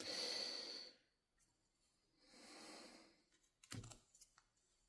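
Mostly near silence, with a faint hiss at the start and a few soft clicks and one short knock about three and a half seconds in.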